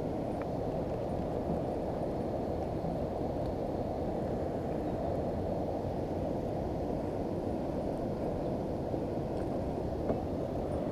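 Steady low rushing noise of wind on the microphone, with a faint tick near the end.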